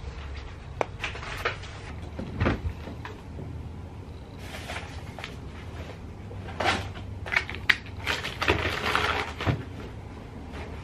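Groceries being put away in a refrigerator: scattered knocks and clatters of items and the fridge door and shelves, with plastic bags rustling, busiest in the second half.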